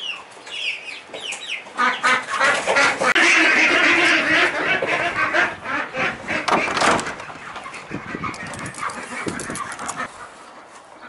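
A flock of young Rhode Island Red hens chirping and clucking together, a dense chorus of short high calls. About seven seconds in, the calls give way to quieter footsteps on grass.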